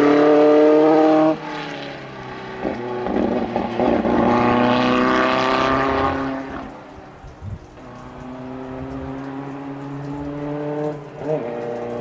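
Cooper Climax T45 Formula 1 car's 2.0-litre Climax FPF inline-four engine running hard. The note is loud at first and drops off suddenly after about a second, swells again as the car passes with its pitch sliding down, then carries on fainter and steady as the car climbs away, with a short rise near the end.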